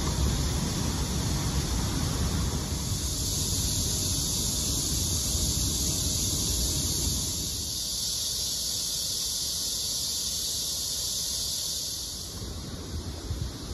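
Wind buffeting the microphone as a low, flickering rumble, under a steady high-pitched hiss that grows stronger a few seconds in and drops back near the end.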